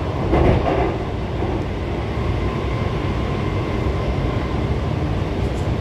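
Cabin running noise of an Alstom Movia R151 metro train in motion: a steady low rumble of the car on the rails, with a brief louder patch about half a second in.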